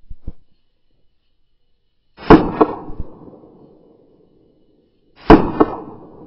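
Pistol fired twice, about three seconds apart. Each loud bang is followed about a third of a second later by a weaker second crack, then a fading echo. Two small clicks come just before, right at the start.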